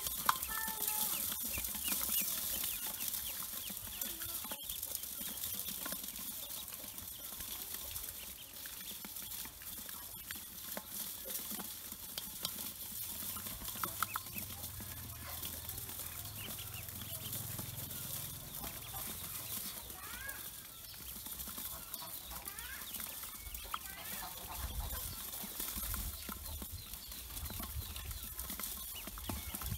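Pekin ducklings peeping, in scattered short chirps, with a few sharp clicks as bills peck grain off the metal bowl.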